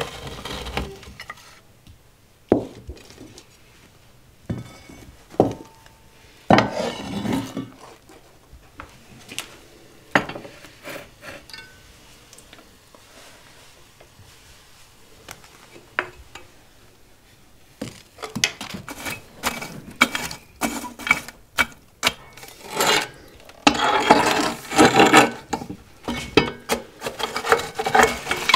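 A long-handled metal oven tool scraping across the hearth of a wood-fired masonry oven and knocking against cast-iron pots. Scattered single knocks at first, then a dense run of scrapes and clinks over the last ten seconds as the embers are raked.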